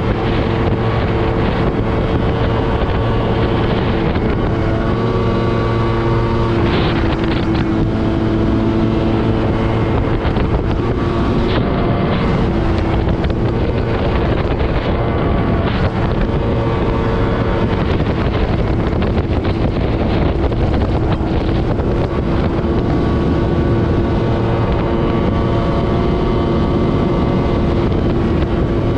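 Outboard motor of an aluminium dinghy running at speed, a loud steady drone whose note shifts slightly now and then, with wind buffeting the microphone.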